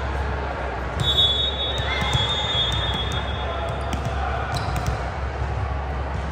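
Volleyball being hit and bounced on a gym court, with sharp knocks at irregular moments. A high whistle-like tone holds for about two and a half seconds starting a second in.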